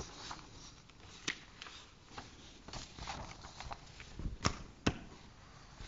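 Quiet meeting-room hush broken by scattered light knocks and clicks, irregular and a dozen or so in all, with the sharpest ones a little past the middle.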